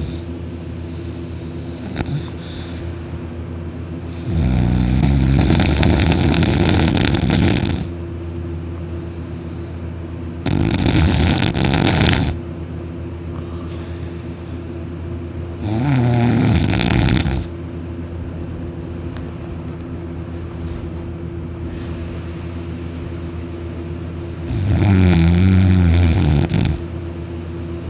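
Loud snoring from a deeply asleep man lying on his back with his mouth wide open: four long snores a few seconds apart, over a steady low hum.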